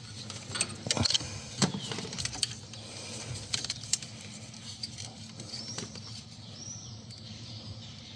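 Small clicks and taps of hands fitting a jumper wire across the reversing-light switch connector, busiest one to two seconds in. Faint bird chirps near the end.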